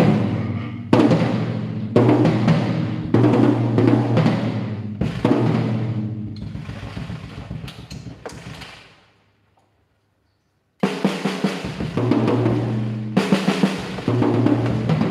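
Acoustic drum kit played with sticks: tom strokes ringing out with a low pitched tone, mixed with cymbal wash, trying out the kit with a newly fitted 12-inch Remo head. The playing stops for about a second and a half past the middle, then comes back with quicker strokes.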